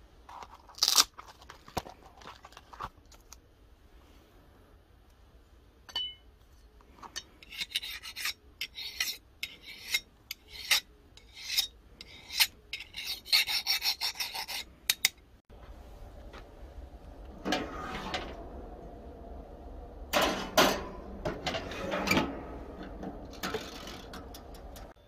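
Hardness-tester file scraped in a quick run of short rasping strokes along the edge of a freshly quenched steel knife blade, testing how hard the steel is. After a break, a steady low hum with several louder clattering knocks.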